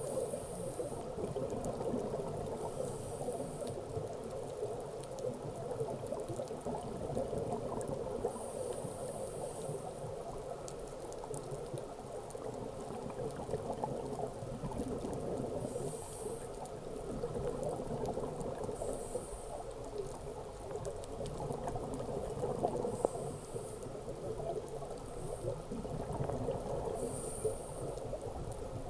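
Scuba diver breathing through a regulator, heard underwater: a steady bubbling rumble, with a short hiss recurring every few seconds.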